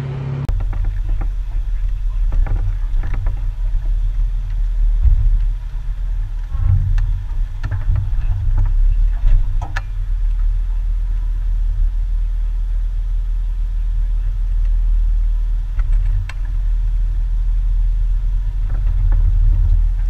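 Jeep driving slowly up a rocky dirt trail, heard as a steady low rumble through a camera mounted on its hood, with scattered clicks and knocks.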